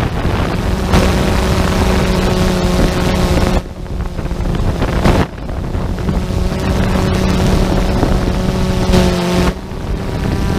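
Quadcopter drone's motors and propellers buzzing steadily with a low hum, recorded by the drone's own camera, with wind rushing over the microphone. The noise dips briefly twice, a few seconds in and again near the end.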